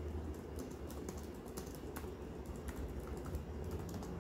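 Computer keyboard being typed on: a run of quick, irregular keystroke clicks as a short phrase is entered, over a low steady hum.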